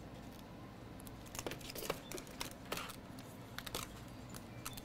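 Faint scattered clicks and light taps of small parts being handled as a battery connector is held against a tablet battery's pins, over a low steady hum.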